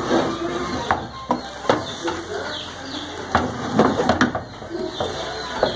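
Plastic spoon stirring rice in a frying pan, knocking against the pan now and then, about five knocks, with birds calling in the background.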